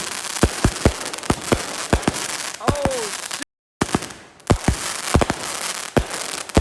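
Consumer firework cake (multi-shot repeater) firing a rapid volley of sharp bangs, roughly three a second, cut off briefly once about halfway through.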